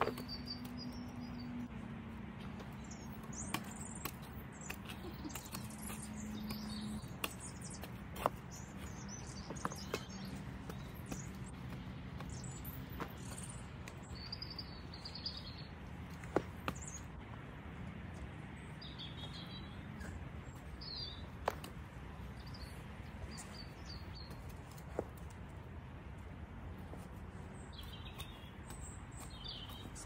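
Spade cutting into lawn turf and lifting sods, with a sharp knock or scrape every few seconds. Small birds chirp in the background over a low steady hum.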